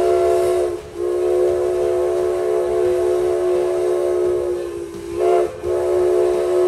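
Steam locomotive's whistle blowing a series of blasts on one steady note: a long blast ending about a second in, another long blast, a short blast about five seconds in, then another long blast. The pitch sags briefly as each blast cuts off.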